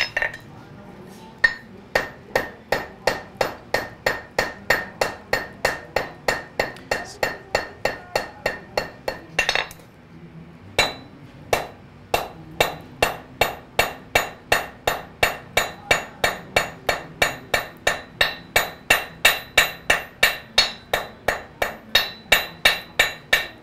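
Blacksmith's hand hammer striking a red-hot iron rod on an anvil in a quick, steady rhythm of about three blows a second, each with a short metallic ring: drawing out the point of a hand-forged nail. The hammering breaks off briefly about ten seconds in, then resumes at the same pace.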